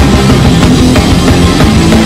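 Loud, fast punk-style rock music: a drum kit hitting steadily under bass and thick, dense guitar-band sound.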